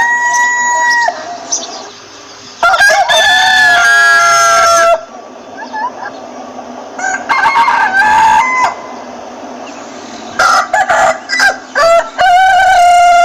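Rooster crowing about four times, long drawn-out calls a few seconds apart, several falling in pitch at the end, with shorter clucking calls of hens in between.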